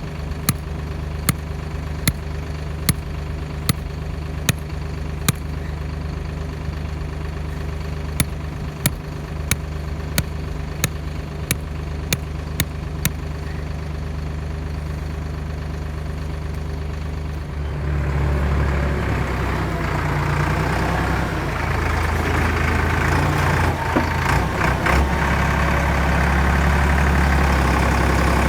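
Tractor engine idling steadily with sharp ticks at first about once a second, quickening before they stop. About two-thirds of the way in it throttles up and runs louder under load.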